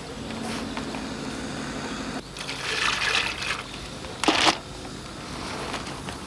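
Groundbait crumb being stirred and kneaded by hand in a plastic bucket and wetted with water from a second bucket, with a short, loud splash a little after four seconds in.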